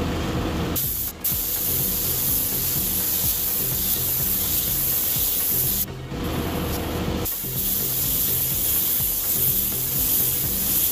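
Air-fed gravity-feed paint spray gun hissing steadily as it sprays black base coat onto a car hood. The hiss breaks off briefly twice, about a second in and about six seconds in.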